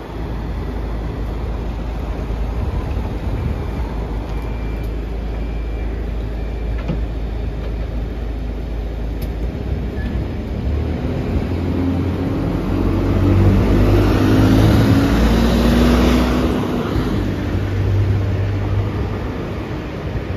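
Diesel engine of an Alexander Dennis Enviro200 single-deck bus idling with a low rumble, then revving up as the bus pulls away from the stop. The engine is loudest about two thirds of the way through and then fades as the bus moves off.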